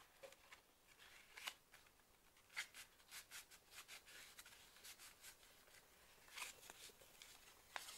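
Faint paper rustling with light crackles and taps as folded mixed-media paper pages are pressed onto a card cover and the small concertina book is picked up and handled.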